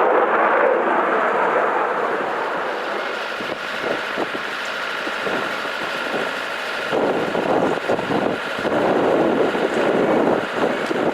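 Aircraft engine noise: a loud rushing with a thin steady whine, easing off after a couple of seconds and swelling again about seven seconds in, with wind buffeting the microphone.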